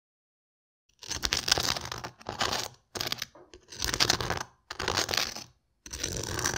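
Loud crunching of crisp pork crackling, in about six bursts roughly a second apart, starting about a second in.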